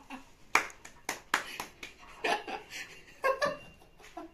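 Drinking glasses knocked and set down on a cloth-covered table several times as they are flipped over, with short bursts of laughter.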